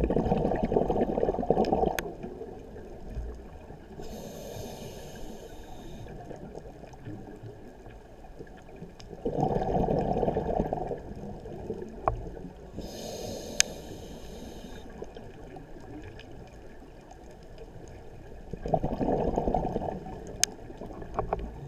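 Underwater scuba breathing through a regulator: three bursts of exhaled bubbles, with a hiss from the regulator on each inhale between them. A few sharp clicks, the strongest about halfway through, from a pistol shrimp snapping its claw at a brass clip.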